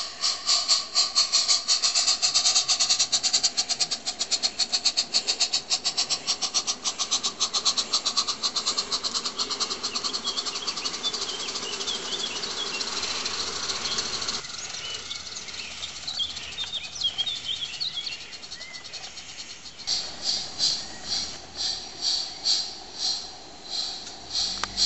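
Live-steam garden-railway locomotive chuffing in a quick, even beat as it hauls its wagons, with birds chirping over the middle part. After about twenty seconds a slower beat of exhaust chuffs takes over from a model of the ÖBB 898 steam locomotive.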